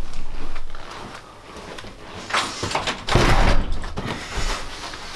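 A house front door being shut and its latch and lock worked by hand, with a heavy thud about three seconds in.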